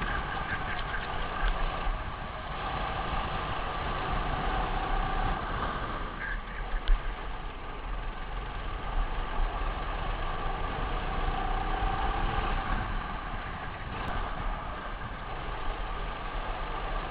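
Racing kart engine heard from an onboard camera on the kart, its revs rising and falling repeatedly as it is driven through corners, over a heavy low rumble.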